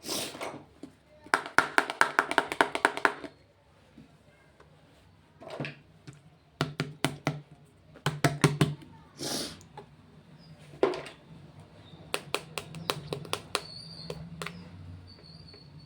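Fingernail tapping and clicking on plastic makeup packaging: a fast run of taps early on and scattered clusters later, with brief rustles of packaging in between.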